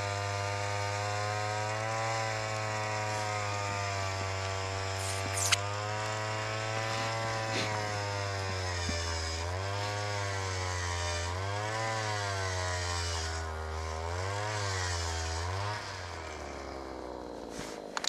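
A small gasoline engine runs at a steady pitch, then its speed rises and falls again and again, like an engine being revved under changing load, before dropping off near the end.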